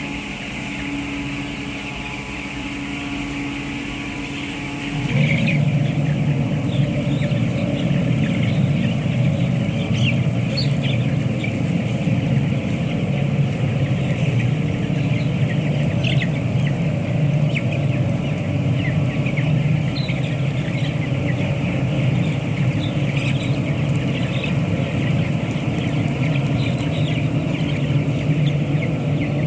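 A machine or motor hums steadily, then becomes louder and rougher about five seconds in and keeps running. Over it, a flock of chickens or chicks cheeps with many short high calls.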